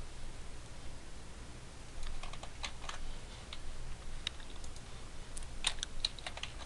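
Computer keyboard keystrokes and mouse clicks, faint and sharp, in two short clusters: about two seconds in, and again around five to six seconds in.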